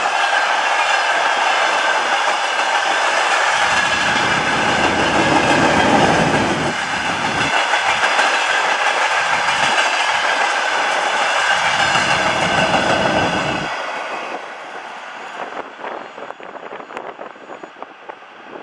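Freight train wagons rolling past at speed: a loud, steady rattle of wheels and cars with a clickety-clack over the rail joints. About fourteen seconds in the noise drops away as the train passes, leaving fainter clicks.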